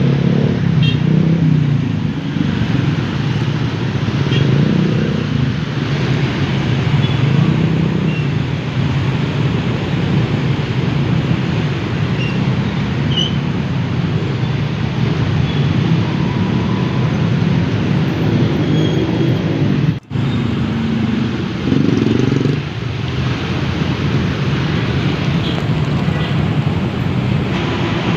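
Motor vehicle engine and road noise running steadily, with a brief dropout about twenty seconds in.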